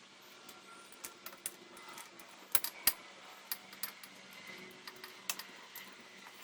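Light metallic clicks and taps of small bicycle parts and tools being handled, with two louder knocks near the middle.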